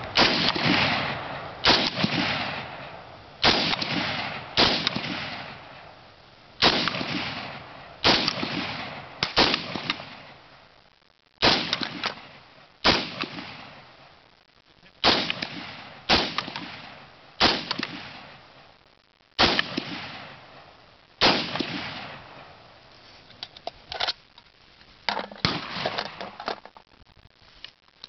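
Springfield M1A National Match semi-automatic rifle fired shot after shot, about fourteen shots one to two seconds apart, each a sharp crack with a long echoing tail. Near the end come several fainter sharp knocks.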